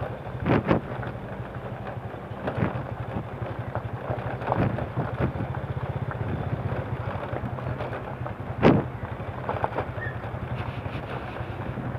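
Motorcycle engine running steadily at low speed while riding over loose gravel, with a few sharp knocks from the bike jolting over stones, the loudest about three-quarters of the way through.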